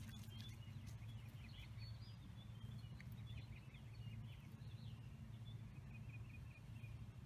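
Small birds chirping in quick, short notes over a faint, steady low hum.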